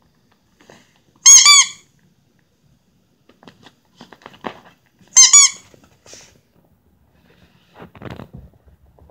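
A squeaky plush bone toy squeaked twice as a puppy bites down on it, each squeak about half a second long. Soft clicks of chewing and handling come between the squeaks.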